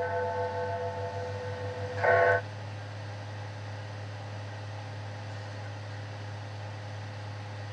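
A bell's ringing dies away, and a short further stroke of ringing about two seconds in cuts off abruptly. After that only a steady low hum and hiss remain.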